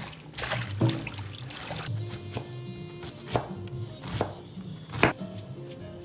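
Leafy greens being cut: a handful of sharp, crisp strokes, the loudest about five seconds in, over background music.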